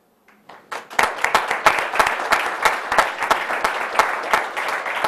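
Audience applause: a few scattered claps that build, about a second in, into many people clapping steadily.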